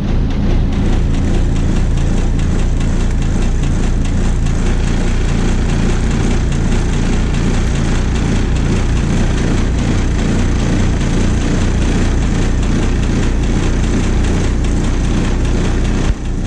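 International DT466 inline-six turbo diesel in a 1986 International S1800 school bus, running at a steady idle seconds after a cold start at about 35 °F. A single short knock comes near the end, after which it runs slightly quieter.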